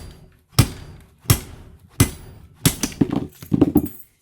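Machete chopping into a small transformer to cut it in half: a series of sharp metallic strikes, four evenly spaced and then a quicker run of about six.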